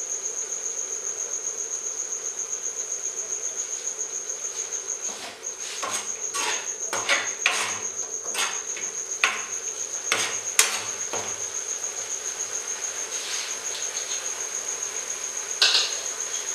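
A metal spoon scrapes and knocks against a metal kadhai as thick masala gravy is stirred, with a quick run of clicks and clanks partway through and one more near the end. Underneath, a steady high-pitched chirp pulses about five times a second.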